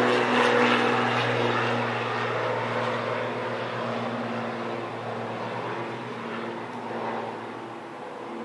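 Pratt & Whitney PW6000 turbofans of an Airbus A318 running at low thrust as the airliner taxis away. It is a broad jet hiss with a few steady low hums underneath, fading as the aircraft moves off.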